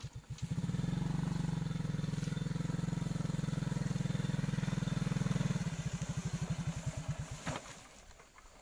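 Small motorcycle engine speeding up from idle about half a second in, holding a steady speed, then slowing back down and fading out near the end. A single sharp click sounds shortly before it fades.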